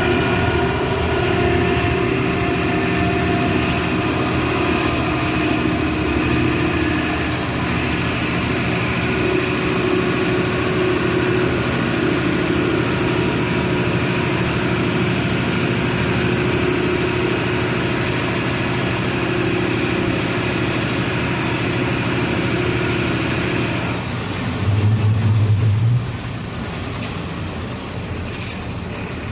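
Diesel engine of a Volksbus 17-230 EOD bus running steadily, its pitch shifting a little. Near the end the engine note drops, a loud low hum sounds for about a second, and the engine then runs quieter.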